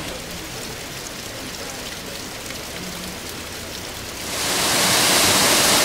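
Water spattering and trickling down a wet rock face, an even hiss with faint patter. A little over four seconds in, a much louder, steady rush of a mountain waterfall takes over.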